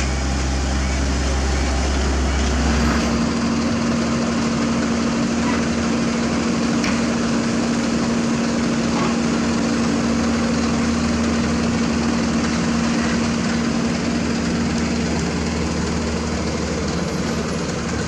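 Diesel engines of asphalt-paving machines running steadily. First a CAT tandem roller; then, after a change about three seconds in, a dump truck's engine with a steady droning tone.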